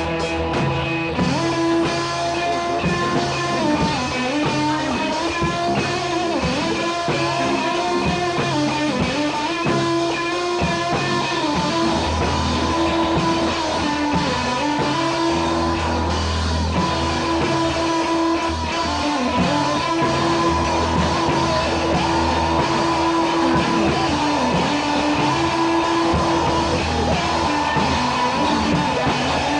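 Rock music with electric guitar and a drum kit, with some singing.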